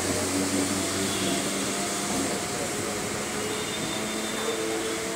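Chennai suburban electric train running slowly past the platform, heard from its open doorway: a steady motor hum with several steady tones over an even rush of noise.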